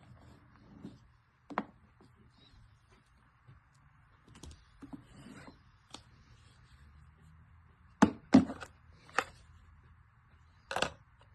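Irregular clicks and knocks of hard objects, a dozen or so scattered through, with the loudest cluster about eight seconds in and another near the end, over a faint steady hiss.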